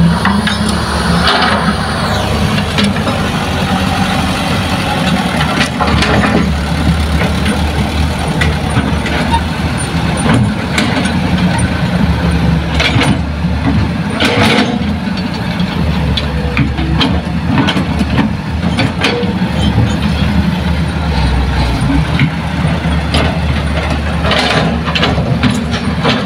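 Diesel engines of a Hitachi excavator and dump trucks running steadily with a low rumble. Short knocks and hisses come now and then.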